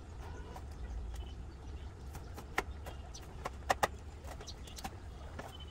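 A few sharp clicks and knocks from kitchen prep with a knife and bowls, most of them bunched a little past the middle, over a low steady hum.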